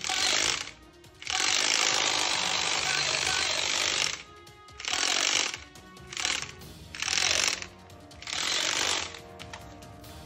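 Camouflage toy gun with a clear, bead-filled drum, its mechanism set off six times: a rattling, whirring mechanical noise, once for almost three seconds and otherwise in short bursts of under a second.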